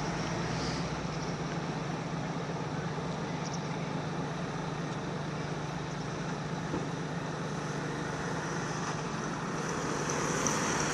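Steady motor-vehicle engine and traffic noise, a low engine hum running evenly with no single vehicle standing out.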